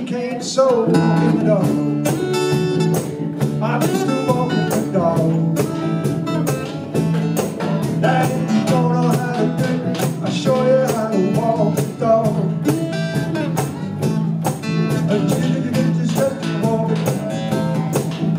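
Small band playing an instrumental stretch of a blues-rock song: acoustic guitar, ukulele and electric guitar strummed on a steady beat of about two strokes a second, with a melodic lead line over them.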